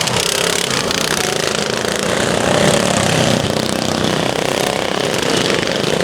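Racing lawn mower engines running on a dirt track, a loud, fast rattling exhaust note.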